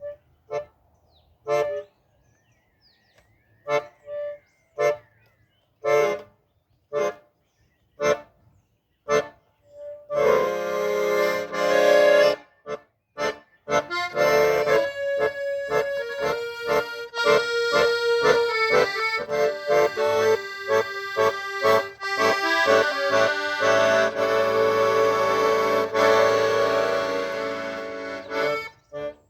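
Instrumental music: short separate notes about once a second for roughly ten seconds, then a fuller passage of sustained chords.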